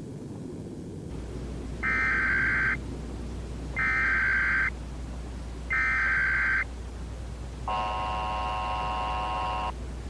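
Emergency Alert System SAME header: three short bursts of warbling data tones, evenly spaced, followed by a steady alert tone lasting about two seconds.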